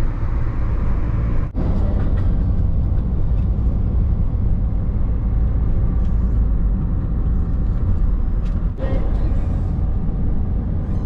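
Steady road and engine rumble inside a moving car's cabin at highway speed, briefly dropping out twice.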